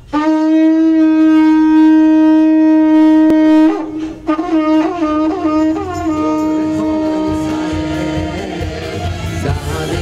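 Long spiral kudu-horn shofar blown: one long held note, a short break, then a run of short notes bending up and down, then another held note. Band music takes over near the end.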